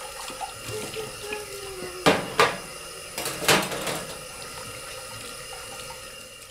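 Tap water running into a stainless steel sink while a small dish is washed under it by hand, with a few sharp clatters of the dish against the sink about two and three and a half seconds in.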